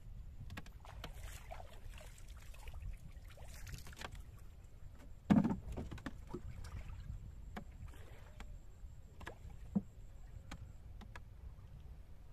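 A small wooden boat being poled through shallow marsh water: water swishing, with scattered knocks of the bamboo pole and wood. There is a heavy thump about five seconds in and a smaller one near ten seconds.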